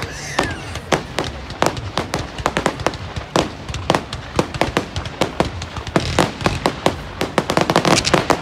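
Fireworks display going off: rapid, irregular bangs and pops, several a second, coming thickest in a dense run near the end.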